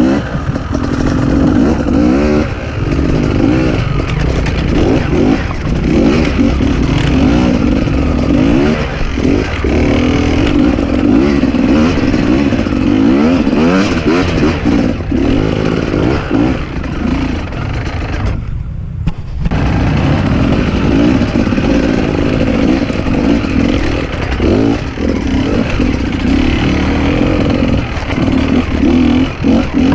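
Enduro dirt bike engine running and revving, its pitch rising and falling continually, with a brief lull about two-thirds of the way through.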